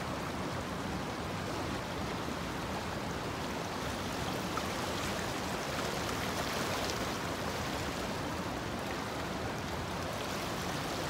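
Small stream flowing: a steady, even rush of water with no breaks.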